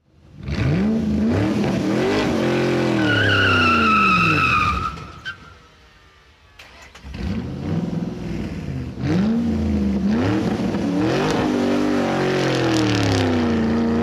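A motor vehicle's engine revving up and down over and over. A high squealing tone is held for about two seconds around three seconds in. The engine dies down briefly near the middle, then revs again.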